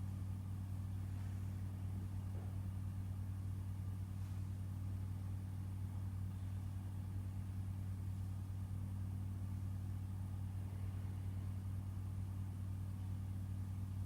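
A steady low hum, even throughout, with no distinct events over it.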